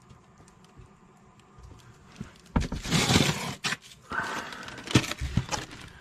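Packaged frozen food being handled in a small fridge's freezer compartment: plastic wrapping rustling and a cardboard box knocking. It starts about two and a half seconds in, with a few sharp knocks near the end.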